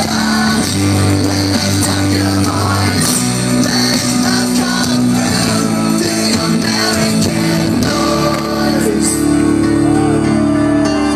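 Rock band playing loud live music, heard from within the audience.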